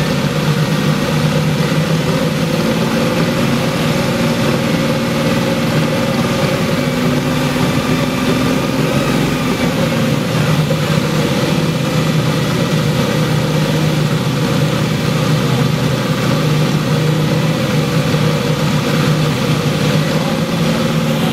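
Car engine idling steadily, its pitch holding even.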